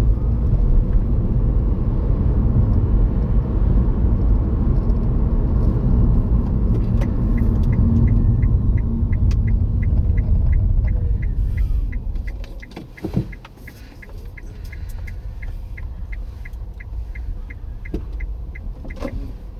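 Car interior road and engine rumble while driving, which drops off about twelve seconds in as the car slows down. A regular fast ticking runs through the second half.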